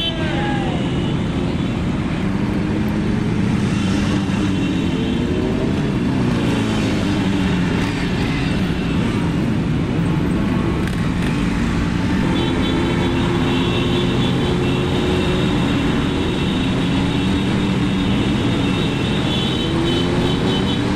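Suzuki Intruder 250's V-twin engine running under way, its pitch rising and falling with the throttle, amid other motorcycles in a group ride.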